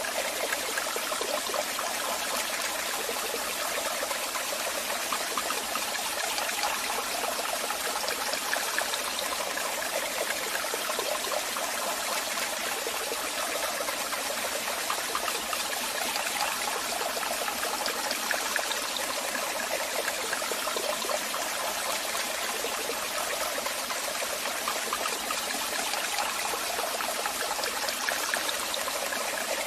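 Waterfall: water falling and splashing in a steady, even rush, bright and hissy with little deep rumble.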